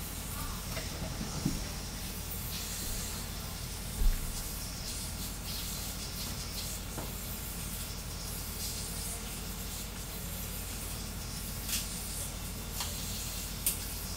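Voron 3D printer printing at high speed: a steady hiss from its fans and fast-moving toolhead over a low hum, with one short low thump about four seconds in and a few faint ticks near the end.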